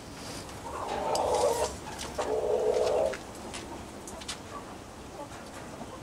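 A dove cooing: two drawn-out coos, each about a second long, with a few light clicks and taps around them.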